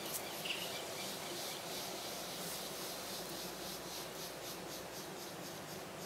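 Insects chirping in a steady high-pitched pulsing chorus, about three pulses a second, with one brief chirp about half a second in.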